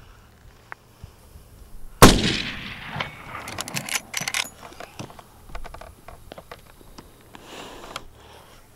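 A single shot from a Marlin Model 336CS lever-action rifle in .30-30 Winchester, loud and sharp with a long echoing tail. About a second later comes a run of sharp clicks.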